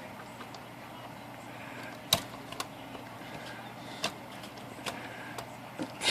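Scattered sharp metal clicks and clacks from a Hermes 3000 typewriter's carriage being seated back onto the machine, about half a dozen over several seconds, the loudest a couple of seconds in.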